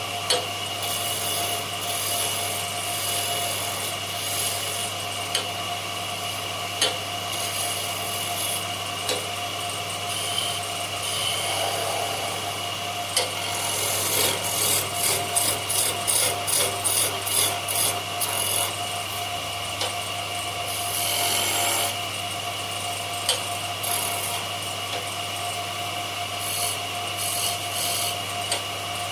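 Wood being worked with a tool: continuous rubbing and rasping on wood over a steady hum, with a run of quick, even strokes about halfway through.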